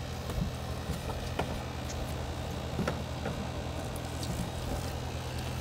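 Steady low electrical hum from an outdoor air-conditioning condenser unit running, with scattered light knocks and clicks from a toddler moving on a plastic slide set.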